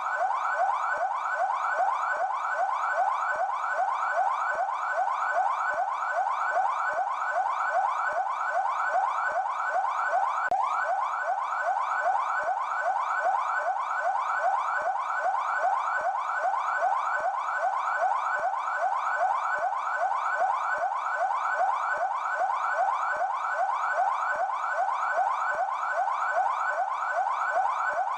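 São Paulo Military Police (PMESP) siren in yelp mode: a fast, continuous wail of rising sweeps, each dropping back and starting again, about three a second.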